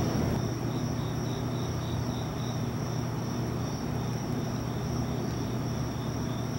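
Night insects (crickets or katydids) calling in chorus: a steady high trill with a pulsing chirp about three times a second. Underneath runs a low steady rumble.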